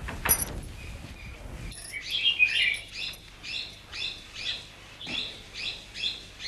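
A bird chirping over and over in an even rhythm, a little over two chirps a second, after a brief noisy sound at the very start.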